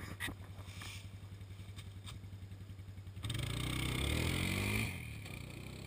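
A four-wheeler (ATV) engine runs with a steady pulsing beat, with a few sharp clicks from the camera being set down. About three seconds in the engine gets suddenly louder for a second and a half, its pitch falling, then drops back and fades.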